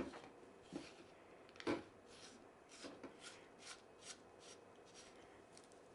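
A faint run of short rasping scrapes, a dozen or so, as a threaded part is screwed onto a lightsaber hilt. The loudest scrape comes just under two seconds in.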